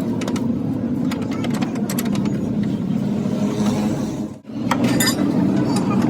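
A motor vehicle running steadily, with scattered sharp clicks over it and a brief drop in sound about four and a half seconds in.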